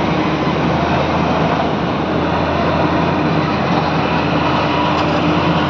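Diesel engines of heavy-haul trucks running steadily under load as they pull a giant multi-axle trailer over dirt and gravel: a continuous low drone with a faint steady hum.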